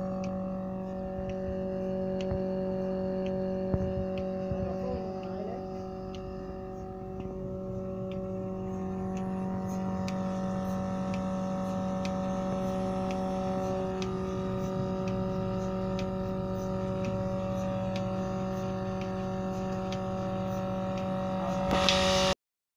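Trolley milking machine's 0.75 hp electric motor and oil vacuum pump running with a steady hum, with faint regular ticking about one and a half times a second. A brief louder burst near the end, then the sound cuts off suddenly.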